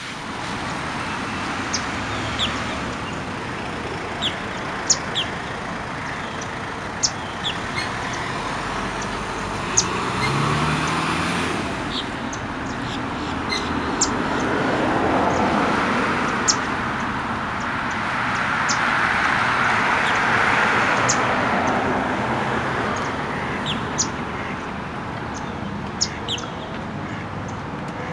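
Outdoor ambience: a steady hiss with a low rumble that swells twice in the middle, like distant traffic passing, under short high bird chirps scattered throughout.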